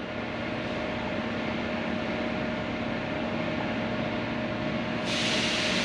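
Steady mechanical hum with a faint constant tone, like a fan or ventilation unit running. About five seconds in, a louder rushing hiss joins it.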